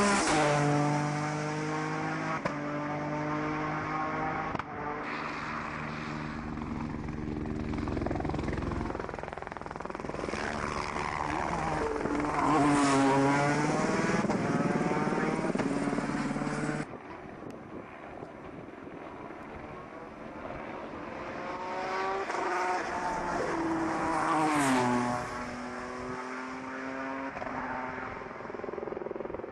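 Peugeot 208 T16 Pikes Peak race car's twin-turbo V6 at full throttle, climbing through the gears with a drop in pitch at each upshift. The revs dip and climb again about halfway through. After an abrupt change in the sound, the engine is more distant and keeps rising in pitch, falling away near the end.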